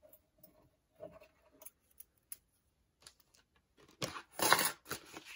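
Faint light taps and rustles of paper die-cut butterflies being handled, then, about four seconds in, a louder run of crinkling from a plastic packaging sleeve holding a metal cutting die.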